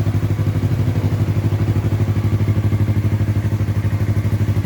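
2022 Yamaha R3's 321 cc parallel-twin engine idling steadily through an Austin Racing slip-on exhaust, with an even, pulsing exhaust note.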